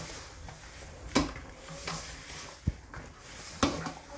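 Dough being kneaded by hand in a stainless steel mixing bowl: soft pressing and scraping, with a few sharp knocks of the metal bowl, about one a second.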